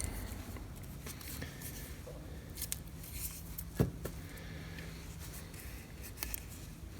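Faint clicks and light scraping of small metal parts being handled as an electric strike is worked apart, with one sharper click a little under four seconds in.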